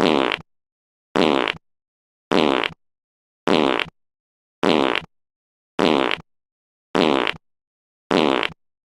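A fart sound effect looped over and over: eight identical short blasts, a little under half a second each and about one a second, with dead silence between them.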